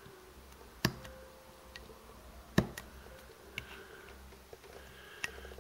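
Craft knife blade cutting and chipping into plastic card tiles, giving a few sharp clicks as small pieces snap off: two loud ones about a second and two and a half seconds in, with fainter ticks between and near the end.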